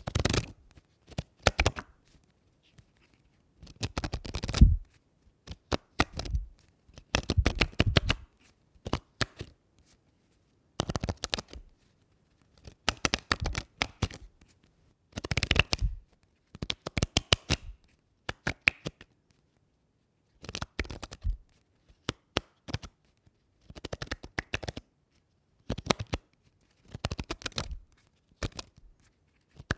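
Paper being torn in a series of separate rips, each lasting about a second, with short pauses between them.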